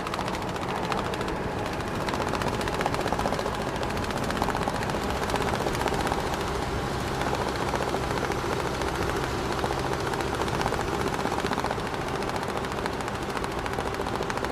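Small electric motor of a DIY model mini tractor running steadily, with a fast, even rattle of clicks from its drive.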